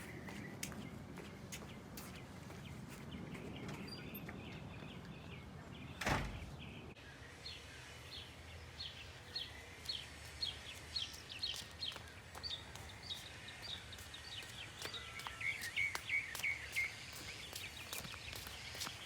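Faint outdoor background noise, broken by a single sharp knock about six seconds in. After it, a small bird chirps over and over: short high chirps about two a second, with light clicks scattered through.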